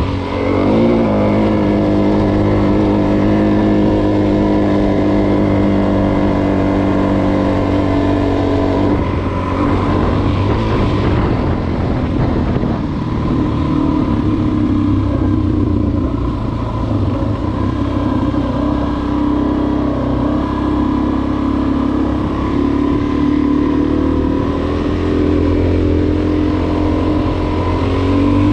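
Suzuki DR-Z400S's 398 cc single-cylinder four-stroke engine running under way on the trail. Engine speed holds mostly steady, with a dip and pick-up about a second in and a change in pitch about nine seconds in.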